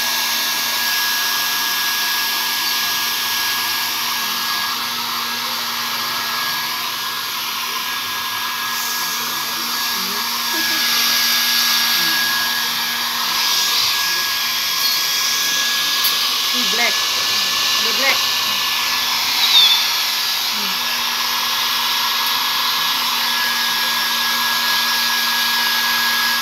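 Hair dryer running steadily, blowing warm air to dry a Persian cat's coat after its bath, with a constant whine over the rush of air.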